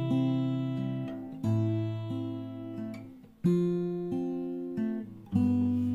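Background music: an acoustic guitar strumming chords, each left to ring and fade before the next is struck every second and a half to two seconds.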